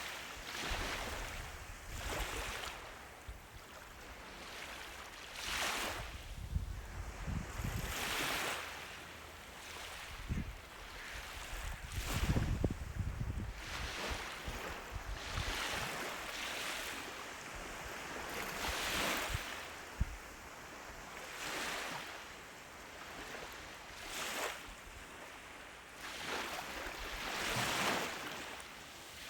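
Ocean waves breaking and washing up a beach, a hissing surge every two to three seconds, with a low rumble now and then.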